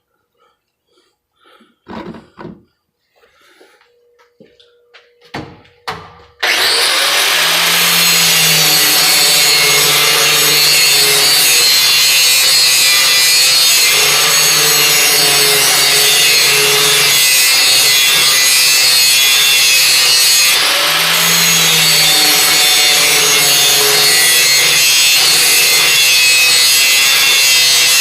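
A few faint clicks and knocks, then about six seconds in an angle grinder starts and runs continuously. It is grinding the bevel of a steel brush hog mower blade held in a vise, taking metal off in back-and-forth passes. Its loud motor tone wavers as it is pressed on and eased off the steel.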